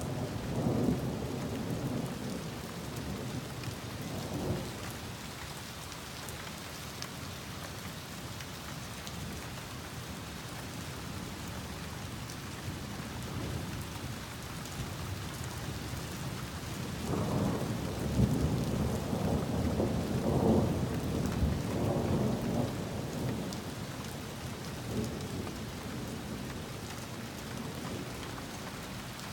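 Heavy rain falling steadily through a thunderstorm. Thunder rumbles twice, a shorter roll at the start and a longer, louder one in the middle.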